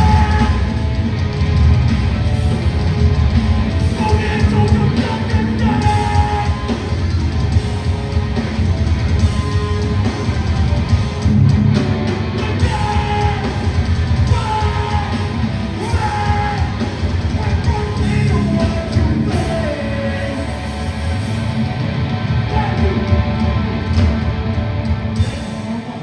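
Live hardcore band playing a song loud: distorted guitars, bass and drums, with sung and shouted vocals. The music drops away near the end as the song finishes.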